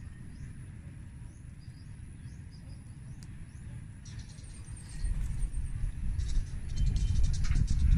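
Wind rumbling on the microphone, growing louder after about five seconds, with faint high bird chirps in the first few seconds. A run of fine high clicks comes in the second half.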